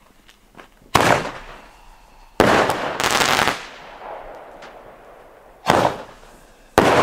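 Nico Bombenrohr, a large Roman candle, firing: a run of loud bangs, one about every second or so, two of them close together a little before the middle, each trailing off in a rumbling echo.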